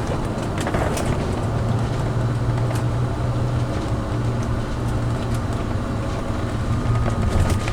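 Class A motorhome driving, with a steady low engine drone and road noise heard from inside the cab.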